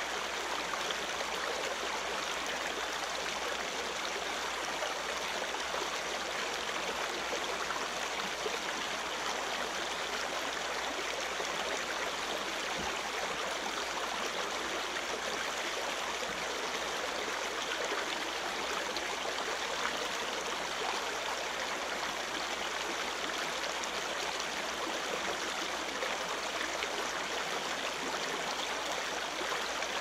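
Forest creek water trickling, a steady, even rush with no breaks.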